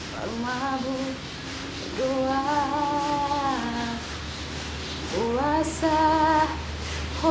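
A woman singing a slow, sad song in three long phrases of held notes, with little or no accompaniment.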